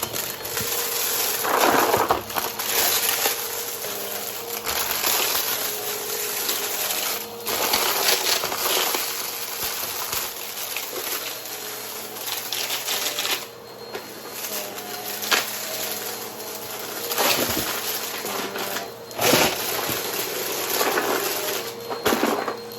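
Upright vacuum cleaner with a spinning brushroll running over carpet, with dense crackling and clicking as debris is sucked up. It gets louder in surges every few seconds as it is pushed back and forth.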